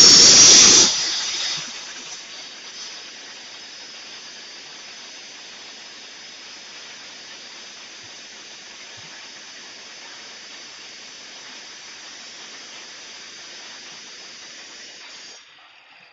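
Loud, even hissing that dies down over the first two seconds, then a steady, quieter hiss that stops abruptly about a second before the end.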